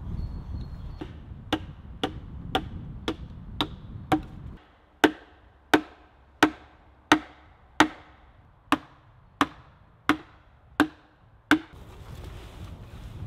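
Wooden pegs being driven into holes in wooden planks with a wooden club, wood striking wood: six quicker knocks, then after a cut ten louder, evenly spaced knocks, a little over one a second.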